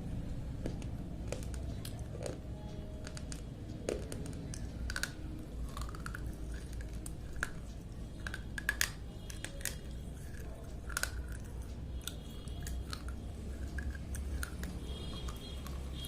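Slate pencils being bitten and chewed: irregular sharp, dry crunches and clicks.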